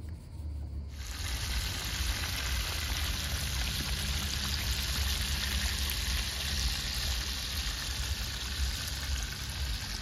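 Whole fish frying in a large shallow pan of hot oil over an open fire: a steady sizzle that starts suddenly about a second in, with a low rumble underneath.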